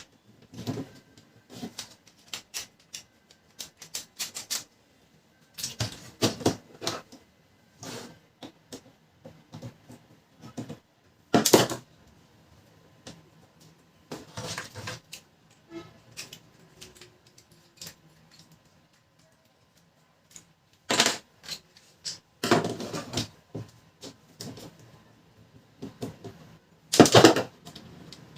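Irregular clicks, taps and clattering of plastic and metal parts being handled and pried apart while a laser printer's fuser unit is taken to pieces, with a few louder knocks.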